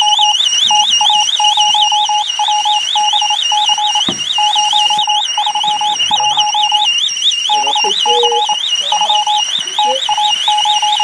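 Electronic alarm on a paintball prop bomb: a high warbling tone cycling about four times a second, over a lower beep that pulses in quick runs with short breaks.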